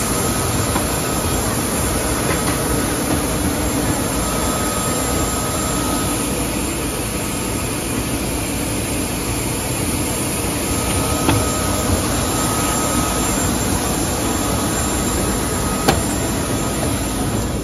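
Steady rumble and hiss of a parked airliner during boarding, with a faint high tone running through it and a couple of light clicks.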